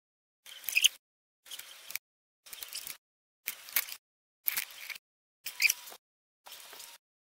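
Sound that cuts in and out about once a second: half-second snatches separated by dead silence. In each snatch come faint clicks and knocks of metal parts as the folding frame and handlebar of a Saxonette motor-bicycle are handled and fitted.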